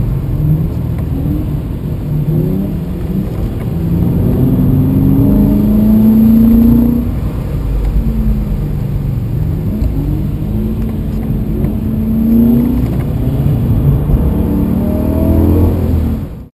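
BMW E92 M3's V8 engine heard from inside the cabin, revving up and down repeatedly under hard driving, loudest about six to seven seconds in. The sound cuts off abruptly at the end.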